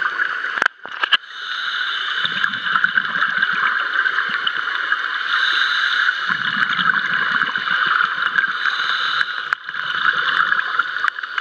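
Underwater ambience picked up by a diver's camera: a steady hiss with scattered faint clicks. A low gurgling rumble comes twice, for about two seconds each, about four seconds apart, typical of the diver's exhaled regulator bubbles.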